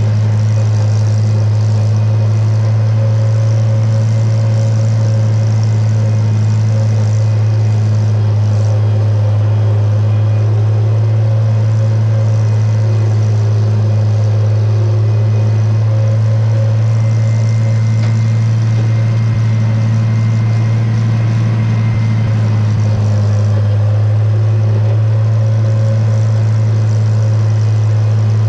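International Harvester 706 tractor's six-cylinder engine running steadily at working speed, a constant low drone with no change in pitch.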